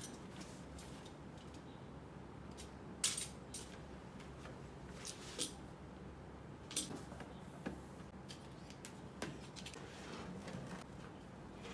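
Faint, scattered clicks and light metallic clinks of computer parts and small hardware being handled during a PC build, a few separate taps and snaps several seconds apart over a quiet background hum.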